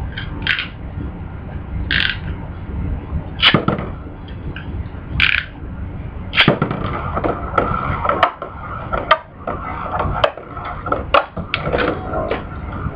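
Metal Beyblade spinning tops battling in a plastic stadium: sharp clicks and knocks at first, then from about halfway a steady whir of spinning tops broken by many quick clashes as they hit each other.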